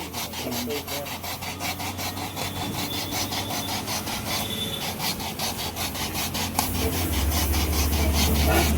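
Rapid back-and-forth rasping strokes, typical of a puncture repairer roughening a bike inner tube around the hole with a rasp before applying the patch. A steady low hum grows louder near the end.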